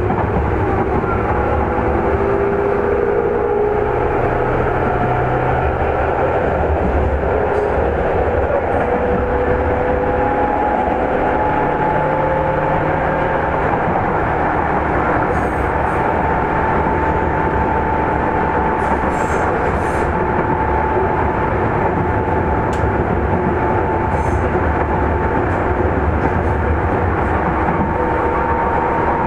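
Running sound inside a JR East 205 series 3100 motor car, with the whine of its MT61 traction motors and gearing over a steady rumble of wheels on rail. The whine climbs slowly in pitch as the train gains speed, and a few light clicks come through around the middle.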